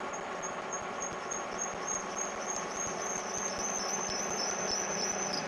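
Engine lathe running under cut, turning a workpiece into long stringy chips: a steady machine hum with a high chirp that repeats about three times a second and grows louder over the first few seconds.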